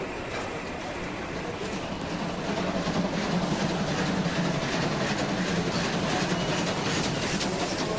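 Sound effect of a train passing through a station: a steady rumble of wheels on rails that grows louder about two to three seconds in, with clattering rail clicks in the second half.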